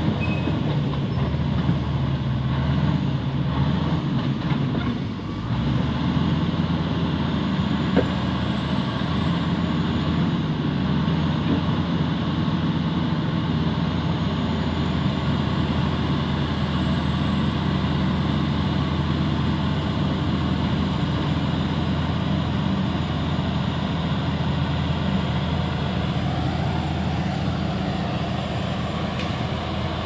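Komatsu D85ESS-2 crawler bulldozer's diesel engine running steadily under load as it pushes earth, a deep even hum, with a brief dip in level about five seconds in.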